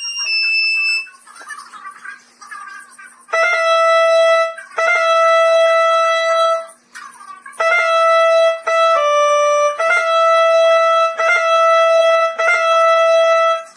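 Steady musical tones, like a keyboard or organ: one held note sounded about five times for a second or two each, with a slightly lower note once just after the middle, in a sped-up recording. Softer scratchy sound comes before the first note.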